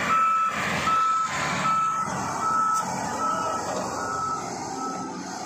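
XCMG wheel loader reversing: its backup alarm gives a steady high beep about once every 0.8 seconds, six times, over the rumble of the running diesel engine. The beeping stops about four and a half seconds in.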